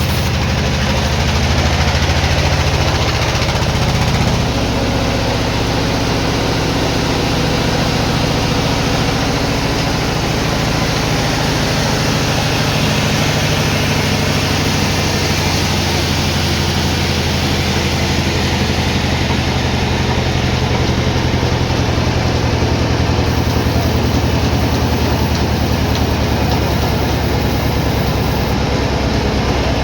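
Sawmill machinery running steadily: a loud, low mechanical hum that shifts pitch about four seconds in.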